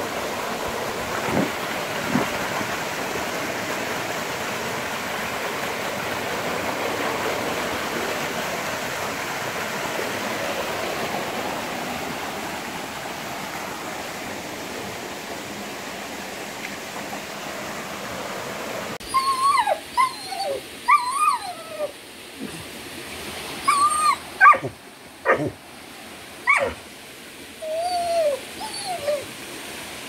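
Steady rushing of a small waterfall. About two-thirds of the way through, a Vizsla starts whining and yipping over and over in short cries that bend up and down in pitch.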